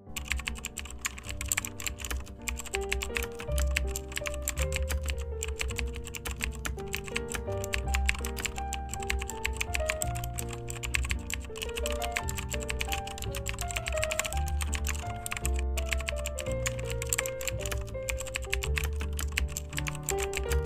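Rapid, continuous computer keyboard typing clicks, the typing sound effect that goes with on-screen text being typed out letter by letter, over background music with a melody and a bass line.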